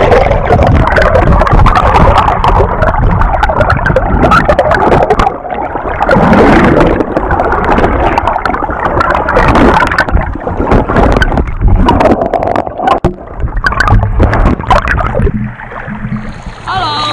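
River water splashing and sloshing right at the microphone, with heavy rumble and many knocks and clicks from the camera being handled in and around the water. It eases off near the end.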